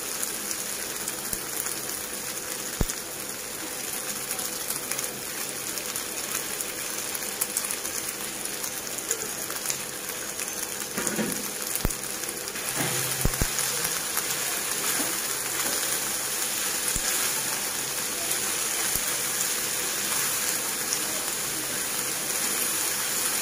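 Macaroni with vegetables and chicken chunks sizzling in a frying pan as it is stirred with a spatula, with a few short knocks along the way.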